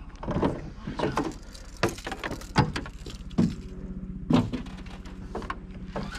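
Hollow knocks and clunks in a small aluminium boat, about six sharp strikes roughly a second apart, over a steady low drone.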